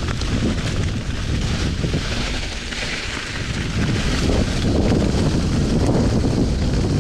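Wind rushing over the microphone and mountain-bike tyres rolling fast over a leaf-covered dirt trail, a steady rumbling noise that gets louder about four seconds in.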